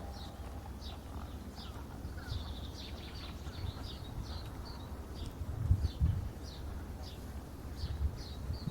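Small birds chirping: short high notes, about one or two a second, over a low rumble, with a couple of dull thumps about six seconds in.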